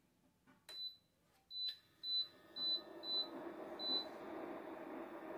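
Induction cooktop being switched on: a click, then about six short, identical high beeps from its touch controls over the next three seconds, and its cooling fan starting up with a steady whir about a second and a half in.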